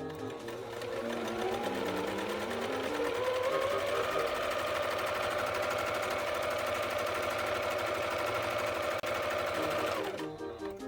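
Jaguar CF-3104 household sewing machine running a test seam: the motor speeds up over the first few seconds, runs at a steady speed, then winds down and stops near the end. The machine has just been cleaned and oiled to cure a loud abnormal running noise taken for a sign of oil starvation and impending seizure, and its running sound is now improved.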